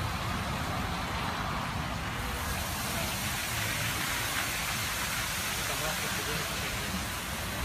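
Leisuwash 360 touchless car wash machine spraying the car through its high-pressure nozzles: a steady hiss of spray over a low machine rumble. About two seconds in it turns brighter and hissier as the foam spraying begins.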